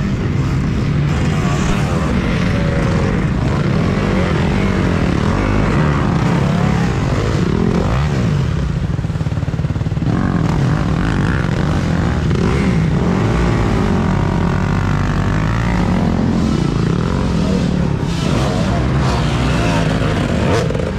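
Several off-road dirt bike engines running and revving hard together, rising and falling in pitch, as the bikes are worked up a muddy, rutted climb under heavy load.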